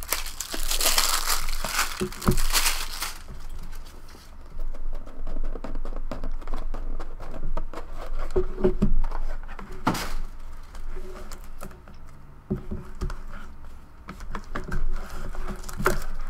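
Plastic shrink-wrap being torn and crinkled off a small card box, a dense crackle for the first three seconds or so. After that come quieter rustles and scattered taps and knocks as the box and its lid are handled.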